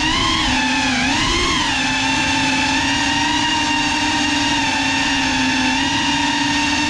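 Small drone's motors and propellers whining steadily, heard from the on-board camera; the pitch wavers down and up during the first two seconds, then holds level.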